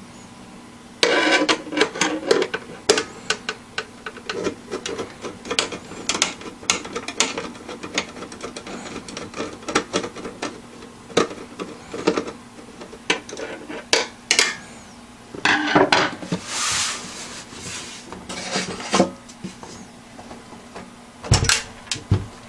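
Plastic and metal parts of a Dell Inspiron 3646 slim desktop being handled during disassembly: a string of irregular clicks, taps and scrapes, with a longer rubbing scrape about sixteen seconds in and two dull thumps near the end.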